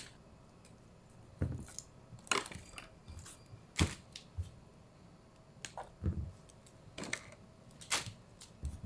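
Irregular clicks and light knocks, about a dozen, some with a dull thud, as computer parts are handled and fitted during a PC assembly.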